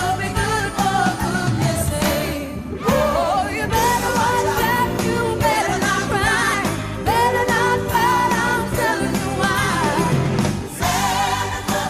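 Music: a song with a lead singing voice over instrumental accompaniment and a steady beat.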